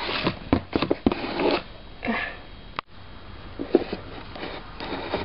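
Light clicks and taps of small objects being handled, mixed with a couple of short breathy noises like sniffs, over a faint hum.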